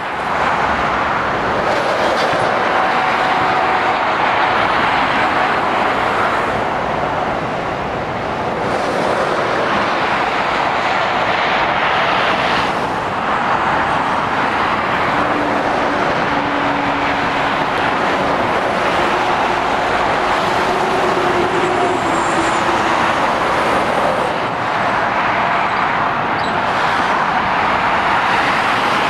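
Road traffic passing: lorries and cars on a main road give a continuous rush of tyre and engine noise. Faint engine tones rise out of it now and then as a lorry draws near.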